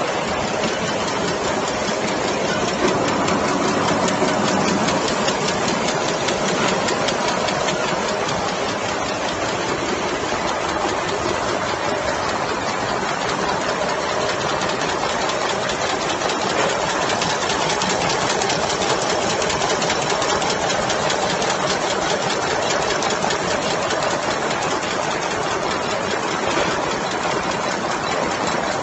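Nagema candy cut-and-wrap machine running: a rapid, even mechanical clatter from its cutting and wrapping mechanism, steady throughout.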